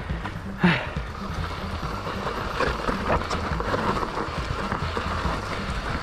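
Mountain bike being ridden down a rough trail: wind buffeting the microphone and the tyres and frame rattling over stones, with one sharp knock about half a second in.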